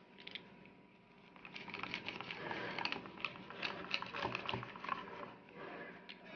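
Knife cutting through a bazlama flatbread pizza on a ceramic plate: a quick run of small crunching clicks as the blade saws through the crust and scrapes against the plate.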